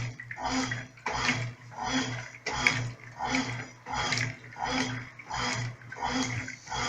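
Brastemp Clean 5 kg top-loading washing machine agitating on its delicate setting: the agitator swishes the water and clothes back and forth about one and a half times a second, with the motor humming on each stroke.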